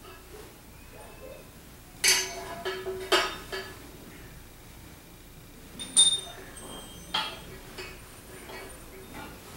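Metal tools clinking against metal tubing as they are handled: a cluster of sharp clinks two to four seconds in, one clink about six seconds in that rings on with a high tone, and another about seven seconds in.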